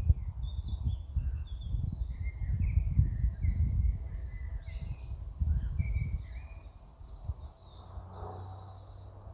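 Small birds chirping and twittering, many short repeated calls, over uneven low rumbling on the microphone that dies down about seven seconds in.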